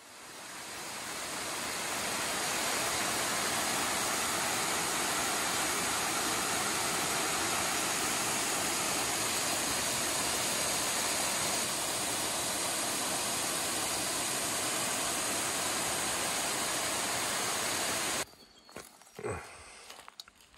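Small waterfall cascading over rock ledges into a creek: a steady rush of water that fades in over the first two seconds and cuts off abruptly near the end. A few faint knocks follow.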